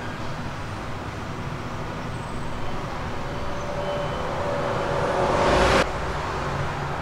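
Steady background rumble and hiss, with no sound from the honey pour itself. It swells louder about five seconds in, then drops off abruptly.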